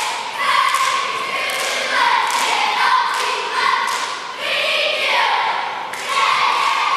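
A squad of young cheerleaders chanting a cheer in unison in short rhythmic phrases, punctuated by sharp claps.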